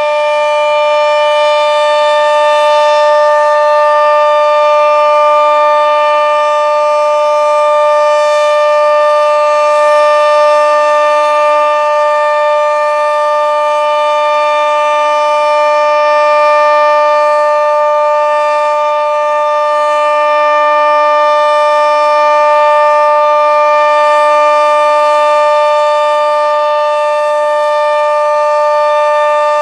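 Sentry 40V2T dual-tone outdoor warning siren sounding the steady full-alert signal on test: two held pitches sounding together, very loud, the level swelling and easing slightly as the rotating horn turns.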